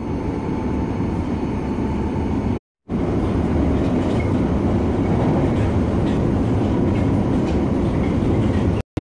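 Steady rumble and rattle of a moving train heard from inside the carriage, broken by a short cut about two and a half seconds in.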